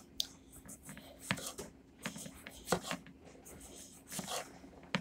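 Kitchen knife slicing a yellow crookneck squash into thin rounds, each cut ending in a short click of the blade on the cutting board, about one every second and a half.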